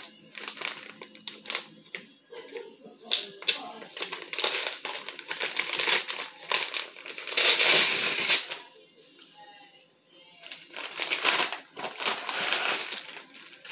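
Plastic packaging crinkling and rustling in irregular bursts as a bagged hat is unwrapped, loudest about halfway through and again near the end.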